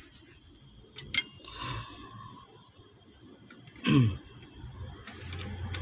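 Metal engine parts being handled and fitted by hand: a sharp click about a second in, a short scrape, then a loud brief sound that falls in pitch about four seconds in, and a low hum near the end.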